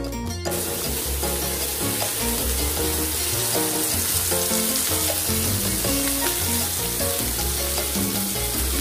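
T-bone steak and garlic cloves sizzling in butter in a hot cast iron skillet. The sizzle starts about half a second in, with background music playing underneath.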